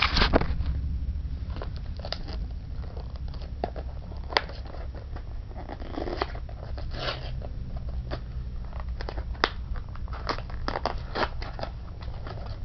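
Packaging of a miniatures booster pack being handled and opened: scattered sharp clicks and short crinkles and tears, over a steady low hum.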